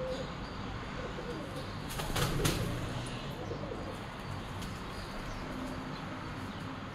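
Pigeons flapping their wings on a window ledge, with a quick flurry of wingbeats about two seconds in, over a steady low hum.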